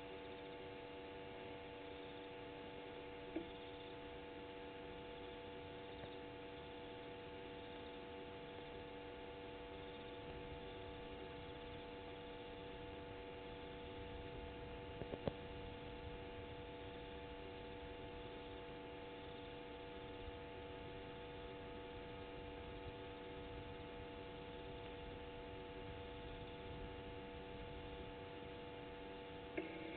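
Faint, steady electrical hum: a cluster of fixed tones on an open live-camera audio feed. Faint clicks come about three seconds in and again about halfway, and a short change in the sound comes just before the end.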